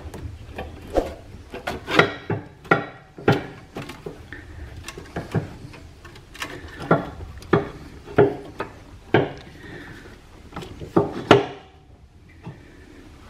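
Irregular knocks and clunks, with some scraping between them, as a replacement front engine mount is worked by hand down through a tight gap in the engine bay. The knocks stop a little before the end.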